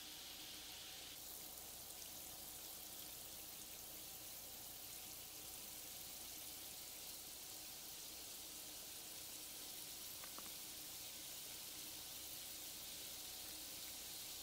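Bath bomb fizzing in a cup of water: a faint, steady hiss of bubbles, growing a little stronger about a second in.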